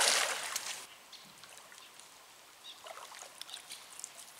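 Water splashing as a hooked carp is brought in to the bank, loud at first and dying away about a second in, then faint trickling and drips.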